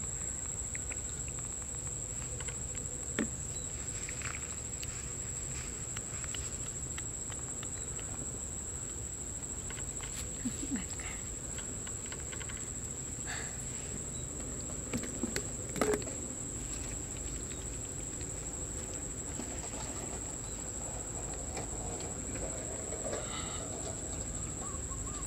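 Insects in the grass making one steady, unbroken high-pitched trill, over a faint low rumble, with a few soft taps and rustles.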